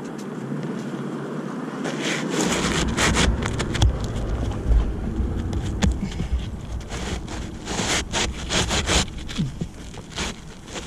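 Wind buffeting the microphone, with a low rumble starting about two seconds in and many short scraping and rustling clicks, like handling noise.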